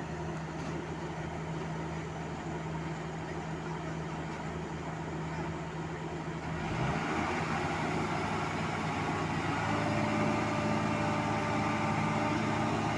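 Heavy diesel engine running steadily. It works harder about halfway through, growing louder with a further tone joining a little later.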